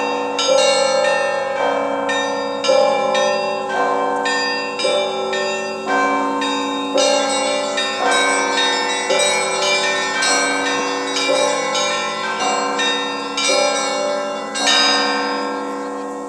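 Russian Orthodox church bells ringing from a belfry: a steady pattern of strokes about once a second, with smaller bells chiming between them. The last stroke rings out and fades near the end.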